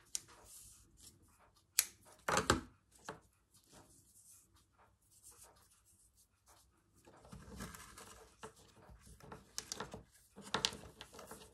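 Soft rustling and small clicks of hands handling rickrack trim, ribbons and wooden beads on a bunting string. A few sharper taps come about two seconds in and again near the end.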